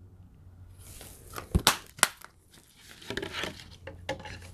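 A plastic Blu-ray case and its cardboard slipcover being handled. The case clicks shut with two sharp snaps about one and a half and two seconds in, with plastic and card rustling and scraping around them.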